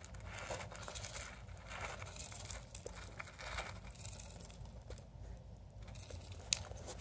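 A small pet burrowing through wood-shaving and paper bedding: irregular bursts of rustling and crinkling, busiest in the first few seconds, with one sharp tick about six and a half seconds in.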